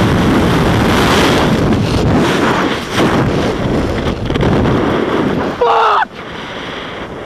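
Wind rushing loudly over a body-worn camera's microphone as a gorge-swing jumper free-falls and swings. A short yell from the jumper cuts through the wind about six seconds in.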